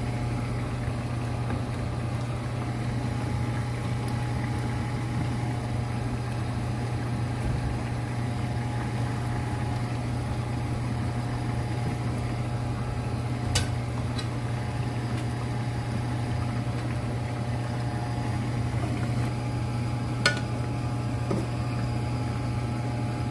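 Steady low hum of a kitchen fan, such as an electric cooktop's cooling fan or a range hood, with a stew simmering in the pan beneath it. Two brief clicks break in, about halfway through and again near the end.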